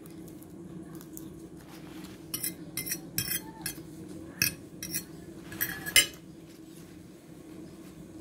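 Metal fork scraping and clinking against a plate while picking up arugula salad: a string of short clinks from about two to six seconds in, the last one the loudest. A steady low hum runs underneath.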